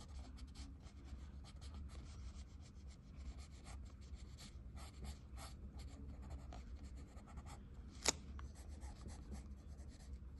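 Pencil scratching on paper in many short, quick strokes. A single sharp click about eight seconds in.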